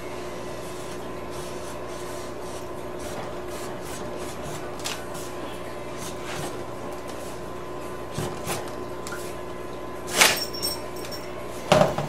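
Utility knife blade scraping along a metal ruler as it scores a twin-wall polycarbonate sheet, faint against a steady hum, with two sharp knocks near the end.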